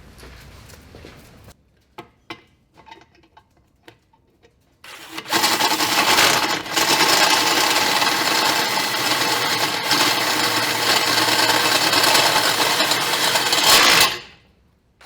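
A few light clicks and knocks, then a handheld power tool runs steadily and loudly for about nine seconds before stopping abruptly.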